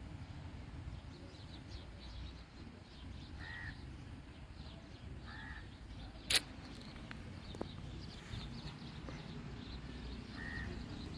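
A crow cawing three times, widely spaced: once about a third of the way in, again about halfway, and once near the end, over a steady low background rumble. A single sharp click just past the middle is the loudest sound.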